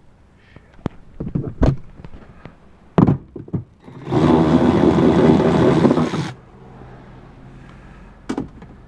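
A few clicks and knocks of tool and plastic trim being handled, then a power driver running for about two seconds, backing out one of the 10 mm panel fasteners.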